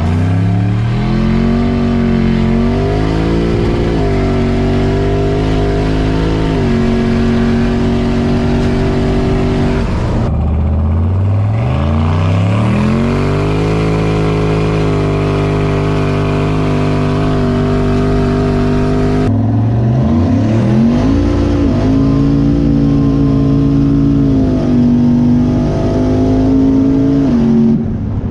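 Turbocharged LS V8 of a 1993 Chevy 1500 pickup revving up and then held at high revs for several seconds, three times over, with the sound cutting abruptly between the runs.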